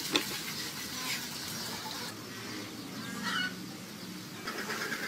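A knife cutting through raw shrimp shell on a wooden cutting board, with a sharp knock of the blade on the board just after the start. A bird calls once in the background about three seconds in.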